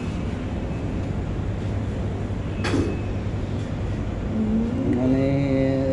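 Steady hum of a shop's refrigerated food counter and ventilation. About halfway through there is one sharp clack, and near the end a voice-like pitched sound starts, rises slightly and holds.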